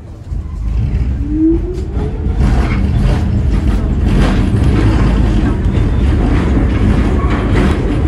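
R46 subway car pulling out of a station and picking up speed into the tunnel: a rising whine in the first two seconds over a low rumble that grows louder and then holds steady, with occasional clacks from the wheels on the rails.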